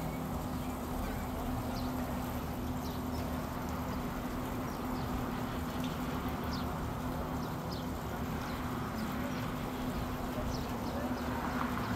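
A steady low hum under a constant wash of outdoor noise, with short faint high chirps scattered through.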